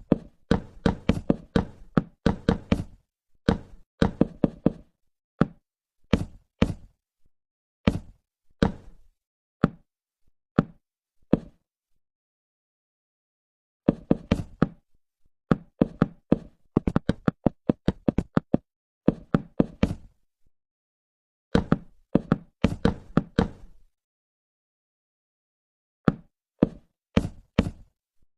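Rapid, irregular knocking: clusters of sharp knocks and taps, several a second, broken by a couple of pauses of dead silence.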